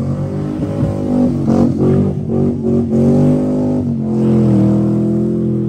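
Car engine revving hard as the car slides and spins on grass, its pitch jumping up and down in quick rev bursts, then holding a high, steadier note that sags slightly near the end.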